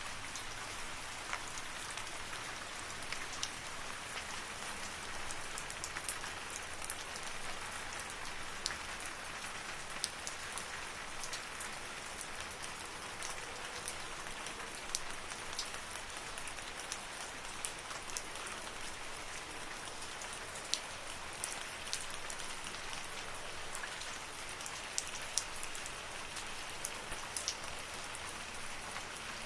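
Steady rain falling in a forest, a constant hiss with many separate drops ticking sharply on near surfaces.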